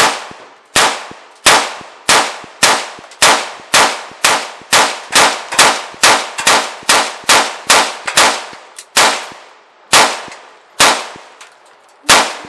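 Rapid semi-automatic fire from an AR-style pistol chambered in 5.7x28mm, a magazine dump: about twenty sharp shots, each with a short echoing tail. The shots come about two a second, quicker in the middle and with longer gaps near the end.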